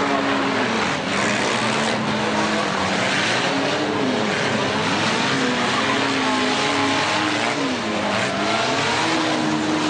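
Four-cylinder demolition derby cars' engines revving up and falling back over and over, several at once, over a dense steady din.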